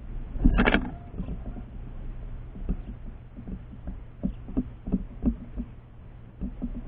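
A bird at a feeder, close to the camera's microphone: a louder clatter about half a second in, then irregular light knocks and taps as it pecks and shifts on the feeder, over a steady low hum.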